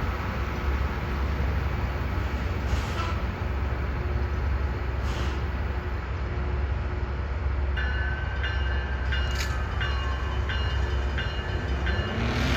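Loram rail grinding machine working: a steady heavy low rumble with a hissing grind. About eight seconds in, a high ringing tone starts repeating about twice a second.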